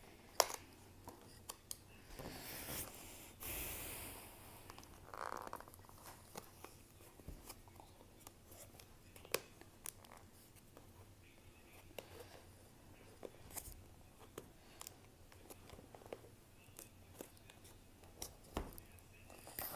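Fingers handling and picking at a sealed cardboard product box, trying to open it: faint scattered taps and clicks, with a few brief rustling scrapes in the first five seconds.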